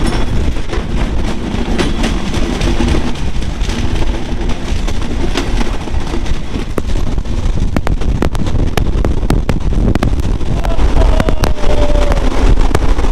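Passenger coach's steel wheels running at speed on broad-gauge rail, heard close up at the bogie: a loud, steady rumble broken by many sharp clicks and knocks.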